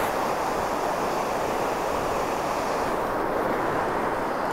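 Ocean surf breaking and washing up on a sandy beach: a steady rushing noise.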